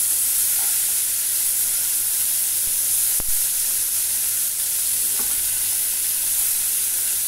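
Sliced onion, capsicum, tomato and cabbage sizzling in a little hot oil in a metal kadhai as they are stirred with a spatula, being lightly roasted. There is a single sharp click about three seconds in.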